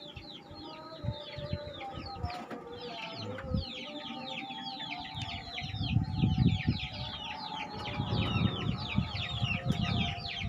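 Chicks peeping: many short, high, falling peeps overlapping in quick succession throughout. From about six seconds in, low rumbling thumps close to the microphone grow louder than the peeping.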